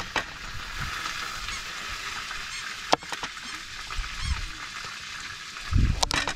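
Kitchen knife cutting carrots on a plastic cutting board: a few sharp knocks of the blade striking the board, one about three seconds in and a quick pair near the end, over a steady background hiss.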